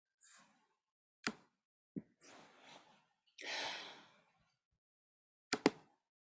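A person sighs, a breathy exhale a little past the middle, amid a few short sharp clicks and faint rustles, two of them close together near the end.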